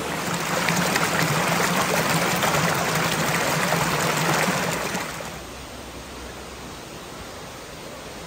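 Shallow river water rushing over rock slabs, loud and close for about five seconds, then dropping to a quieter, more distant rush.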